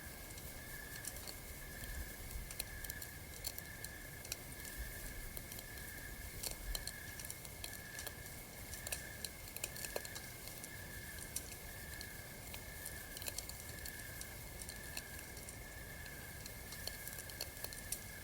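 Campfire crackling, with many small irregular pops and snaps over a low steady rumble, under a steady high tone that pulses about once a second.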